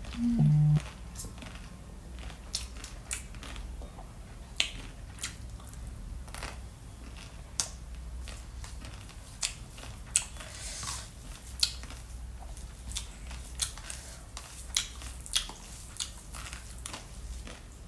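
Eating sounds: irregular sharp crunches and mouth clicks of chewing, a few a second, over a steady low hum. A brief loud low tone sounds right at the start.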